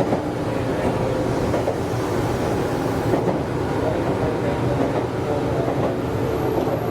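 Meitetsu 100 series electric train running along the line, a steady rumble of wheels on rail with a motor hum, heard from the front of the train.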